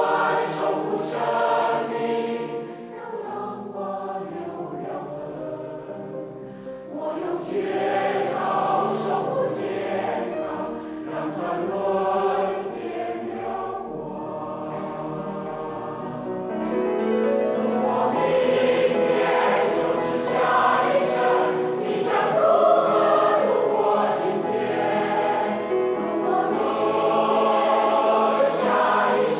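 A choir singing in concert, with many voices together. The singing grows louder a little past halfway through.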